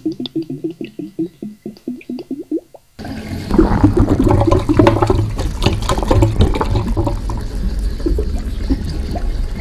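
A rhythmic run of short, low plopping pulses, then about three seconds in a sudden loud rush of water with a deep rumble that carries on.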